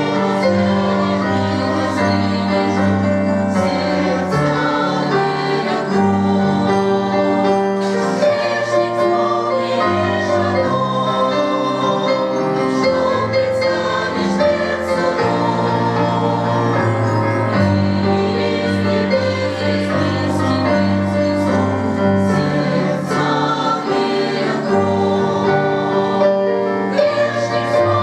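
Church choir singing a Russian gospel song, sustained voices over steady low notes.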